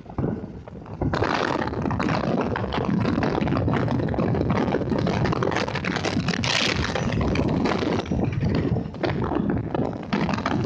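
Wind buffeting the microphone along with road and traffic noise while riding through city street traffic, starting suddenly about a second in.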